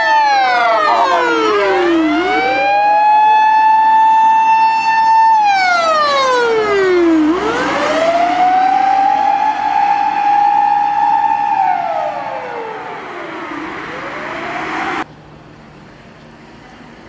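Japanese fire rescue truck's motor siren wailing. The high held tone sinks over about two seconds and winds back up, three times, with overlapping echoes of the sweep. It cuts off suddenly about fifteen seconds in, leaving a much fainter background.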